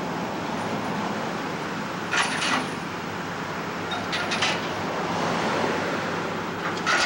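Heavy truck's diesel engine running steadily, with a few short metallic clanks about two seconds in, around four seconds in and at the end.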